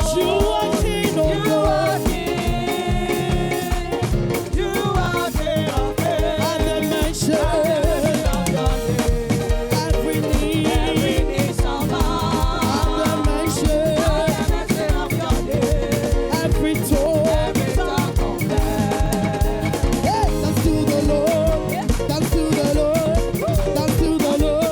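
Upbeat praise music for dancing, with a steady beat under a wavering melody line.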